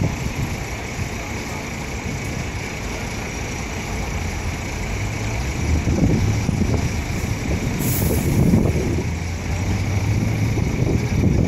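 Heavy road traffic passing close by: a large truck's engine rumble builds through the middle, with a short hiss about eight seconds in.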